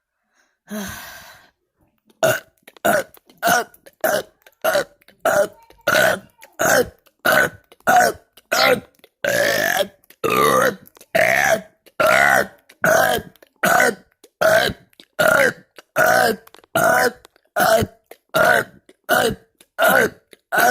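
A person burping over and over in a rapid, even series of short burps, about two a second. It starts with one longer, rough, breathy noise about a second in.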